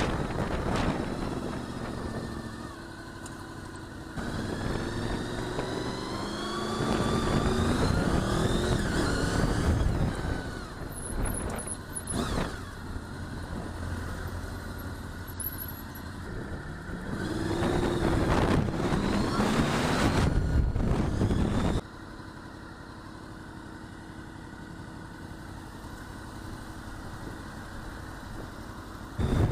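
Motorcycle engine pulling up through the gears, its pitch climbing in repeated rises, over road and wind noise. A little past two-thirds of the way through, the sound drops suddenly to a quieter, steady hum.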